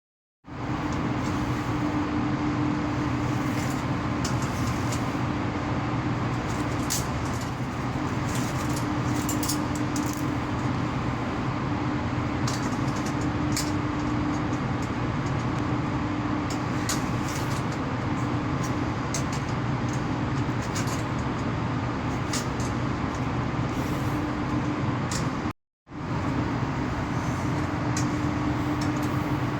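Loud steady electrical hum from low-voltage MCC outgoing power cables, a buzzing drone with one strong steady tone and scattered faint ticks. The hum comes from the cables vibrating against one another in the wrong cleats, which the uploader also links to current leakage to earth and heating. It breaks off for a moment near the end.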